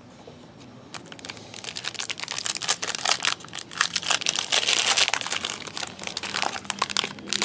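Trading card pack wrapper crinkling and tearing as the next pack is opened by hand: a dense run of sharp crackles that starts about a second in and is busiest a little past the middle.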